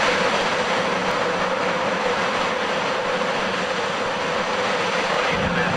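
Soyuz-2.1B rocket engines at ignition: a loud, steady rushing noise that holds evenly, with a deeper rumble swelling briefly near the end.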